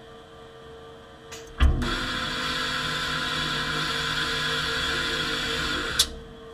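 MPM stencil printer's paper-roll stencil wiper running a wipe cycle: a knock about a second and a half in, then about four seconds of steady mechanical rushing whir over a low machine hum, cut off with a click near the end.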